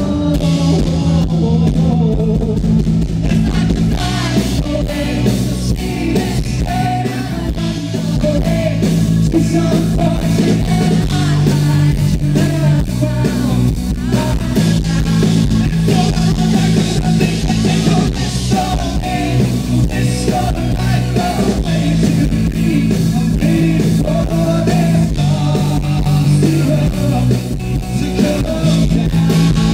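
Live rock band playing: electric guitar over a bass line that changes note every couple of seconds, with steady drums.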